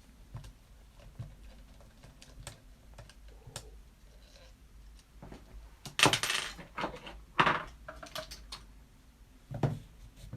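Small metallic clicks and clinks as screws are backed out of an Astro Spectra radio to free its power amplifier block. There are a few louder clattering knocks about six seconds in, again about a second and a half later, and once more near the end.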